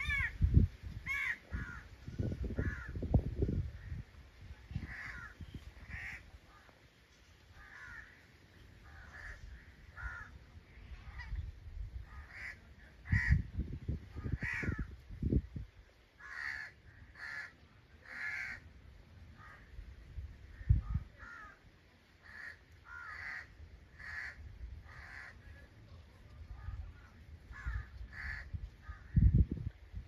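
Crows cawing repeatedly, short harsh calls one after another, with several loud low rumbling bumps over them.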